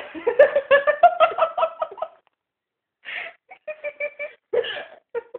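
High-pitched, rapid giggling laughter in two stretches, with a break of about a second in the middle.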